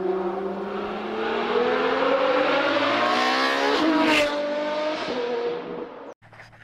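Car engine accelerating hard, its pitch climbing for about four seconds. A short burst of noise and a drop in pitch follow, like a gear change, and it runs on at a lower, steady pitch before cutting off suddenly near the end.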